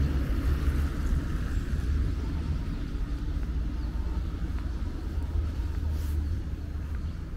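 Outdoor city street ambience: a steady low rumble with a faint even hiss above it.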